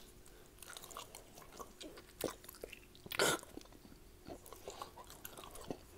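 A man chewing raw ribeye steak: faint, wet chewing clicks, with two louder noisy bursts about a second apart midway through.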